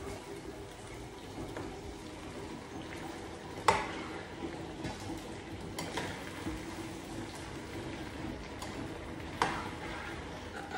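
A red tomato-and-pepper stew base frying in a pan on a gas stove and being stirred with a spoon, a steady frying sound with a few sharp clinks of the spoon against the pan, the loudest about four seconds in.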